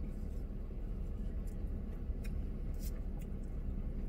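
Steady low hum inside a car's cabin, with a few faint, scattered clicks and taps from plastic spoons and cups as shaved ice is eaten.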